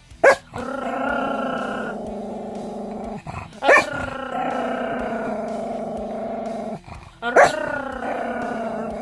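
Pet dog growling in long, drawn-out growls, three in a row, each broken by a short sharp bark.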